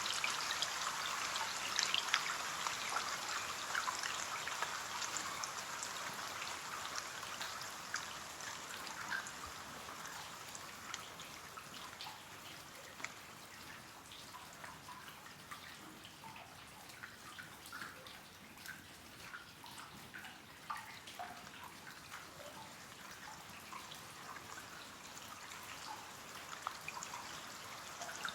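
Rain on a window: a steady patter of drops with separate drips ticking through it. The rain eases over the first half, leaving more distinct single drops, then picks up slightly near the end.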